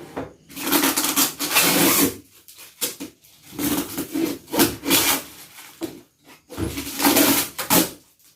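Packaging of a large parcel being torn and ripped open by hand, in three long tearing strokes with shorter scrapes between.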